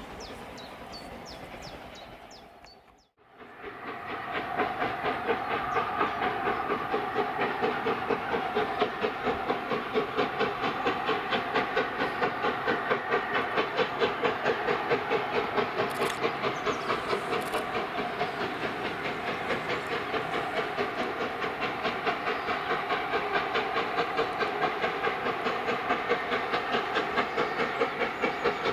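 LNER A4 Pacific 60007 Sir Nigel Gresley, a three-cylinder steam locomotive, working under steam. Its exhaust beats in a rapid, even rhythm over a steam hiss, starting after a brief gap about three seconds in.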